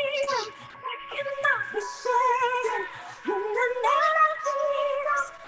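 A woman singing a gospel song over a video call, with held notes that slide and waver in pitch and short breaks between phrases.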